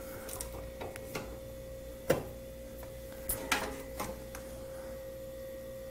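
A steady hum with a handful of scattered light clicks and knocks, the sharpest about two seconds in.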